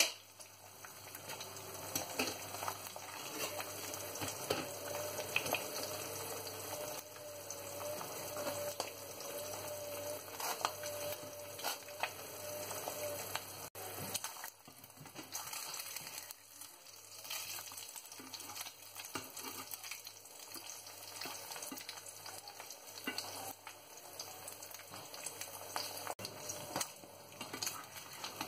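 An egg frying in oil in a nonstick frying pan, sizzling steadily with many small crackles and pops of spattering fat.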